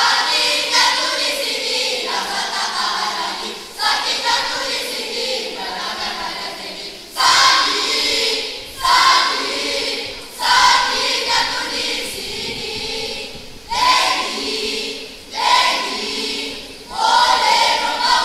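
A large school choral-speaking team of young voices performing in unison. In the second half, loud phrases begin suddenly every couple of seconds.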